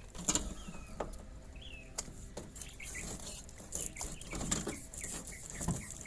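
Small birds chirping in short repeated calls, among scattered clicks and knocks.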